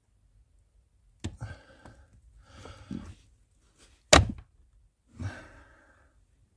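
Pliers working the hood-release cable under a Skoda Superb II's dashboard: rustling and handling noise, then one sharp, loud metallic snap about four seconds in. A man's sigh follows near the end.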